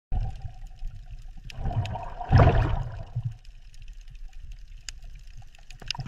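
Water moving and bubbling over a low rumble, with a louder rush of water about two and a half seconds in.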